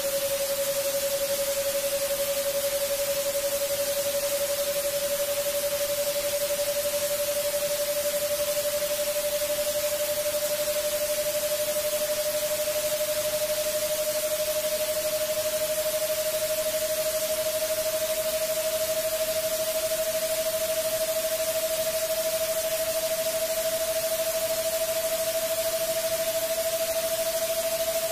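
Electronically generated white-noise hiss with one steady pure tone beneath it, the tone gliding very slowly upward in pitch.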